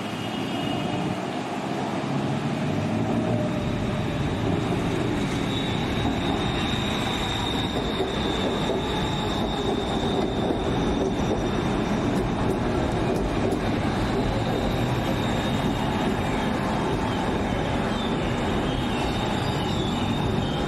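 Bangkok BTS Skytrain elevated metro trains running past on the viaduct: a steady rumble of wheels on rail, with a high, steady wheel squeal that comes in about five seconds in and holds.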